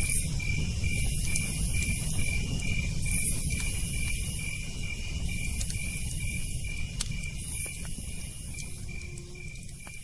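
Night insects chirping: a cricket pulsing steadily about three times a second, with a higher-pitched insect buzzing in repeated phrases of about a second each. There are a few sharp crackles, and the whole fades out near the end.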